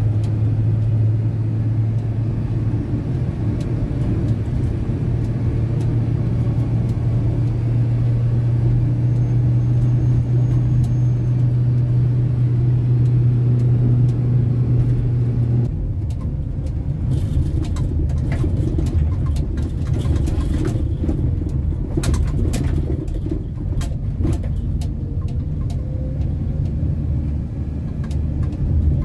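Vehicle heard from inside its cabin while driving: a steady low engine and road drone. About halfway through it becomes rougher and noisier, with a run of sharp rattles and knocks, as the vehicle goes over a bumpy lane.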